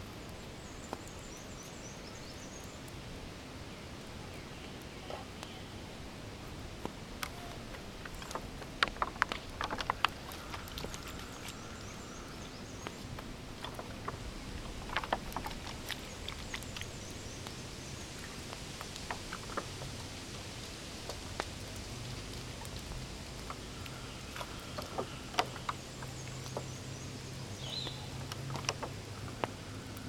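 Woodland ambience: birds chirping now and then over a steady outdoor hiss, with scattered sharp clicks and taps of hands handling gear, and a low hum through the second half.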